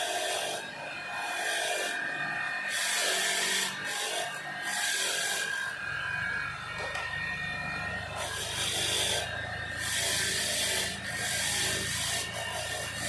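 Repeated rasping strokes, as of something being rubbed or filed by hand, about one a second with a pause midway. A low steady hum comes in about halfway through.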